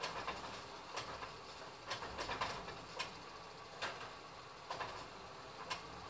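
Labrie Expert 2000 Helping Hand automated arm on a recycling truck dumping a plastic recycling cart into the hopper and bringing it back down: a series of sharp, irregular clanks and knocks, roughly one or two a second, over the steady running of the idling truck and its hydraulics.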